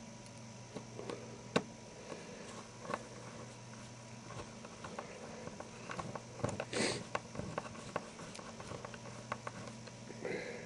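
Faint, scattered clicks and ticks of a small T6 screwdriver turning a tiny screw into a mobile phone's plastic case, with handling noise and a brief rustle about two-thirds of the way through.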